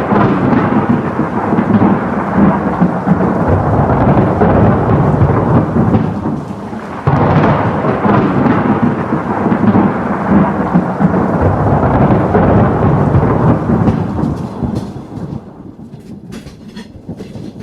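Thunderstorm: two long rolls of thunder over rain. The second roll breaks in suddenly about seven seconds in, and the rumble fades away near the end.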